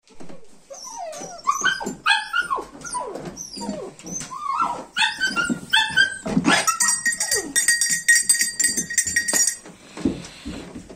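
German shorthaired pointer puppies whining and yelping in short rising and falling cries. About seven seconds in, a hunting dog bell on a collar is shaken and rings rapidly for a couple of seconds, part of getting the puppies used to its sound.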